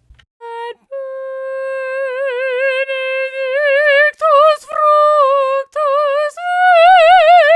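Solo vocal track, uncompressed: a high female voice sings long held notes with wide vibrato, stepping up in pitch, with short breaths between phrases.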